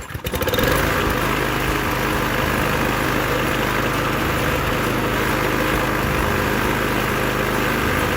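Small lawn mower engine, freshly primed, catching within the first half-second and then running steadily.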